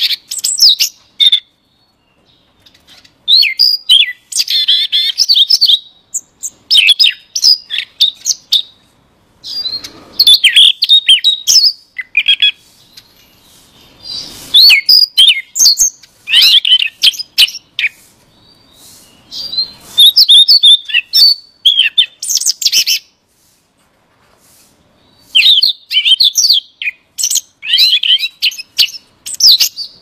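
A male Siberian rubythroat sings loudly in a series of varied phrases. Each phrase is one to four seconds of rapid chirps, trills and sliding whistles, with short pauses between phrases.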